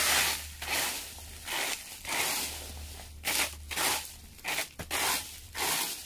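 Dry leaves and yard debris being raked or swept aside: an irregular series of rustling, crunching strokes, about one or two a second.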